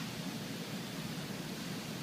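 Steady background hiss of room noise, even throughout, with no distinct sounds standing out.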